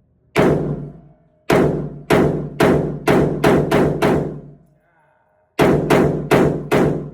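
Gunshots fired in a quick string: eight shots over about four seconds, a short pause, then four more. Each shot is a sharp crack that rings on for about half a second.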